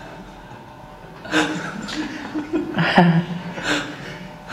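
Short bursts of chuckling laughter, starting about a second in.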